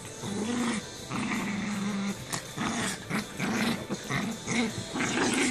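Small fluffy dog growling in a string of short rising-and-falling growls, with one longer held growl about a second in, mixed with the rustle of bed covers as it moves about on them.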